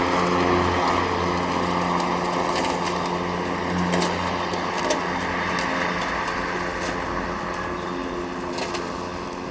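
Mowrator S1 AWD battery-electric remote-controlled mower running with its cutting blades spinning as it drives up a wet grassy slope: a steady hum with scattered sharp ticks, slowly fading as it moves away.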